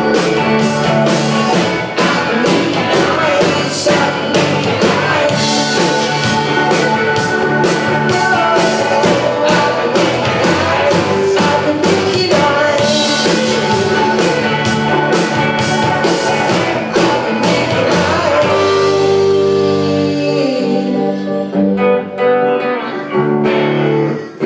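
A rock band playing live: electric guitars, keyboard, drum kit and a singing voice. In the last few seconds the drumbeat drops away and the band holds long ringing chords as the song winds down.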